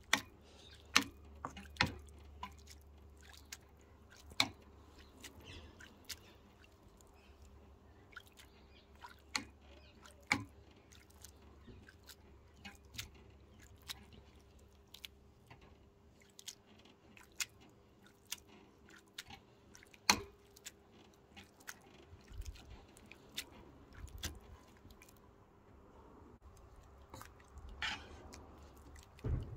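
Slotted metal spatula mashing cooked flageolet beans in broth in a non-stick frying pan: soft wet squishing with irregular sharp taps of metal on the pan, the loudest about twenty seconds in.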